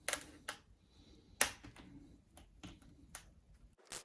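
Scattered sharp clicks and taps of a plastic laptop's parts being handled during disassembly, about seven in all, the loudest about a second and a half in.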